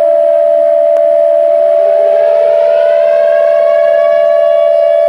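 Emergency alert attention tone, a steady two-note tone, with a siren winding up beneath it, rising in pitch over the first three seconds or so and then holding steady.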